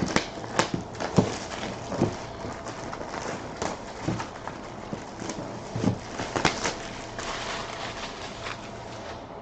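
A box being opened and handled by hand: scattered knocks and taps with rustling of packaging in between.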